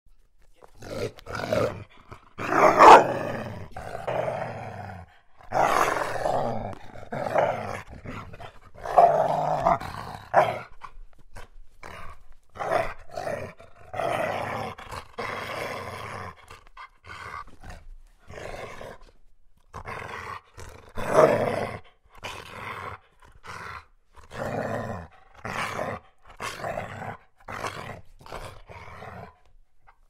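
Medium-sized dog growling in a long run of short, rough growls with brief breaks between them, the loudest bursts about three seconds in, around nine seconds, and about two-thirds of the way through.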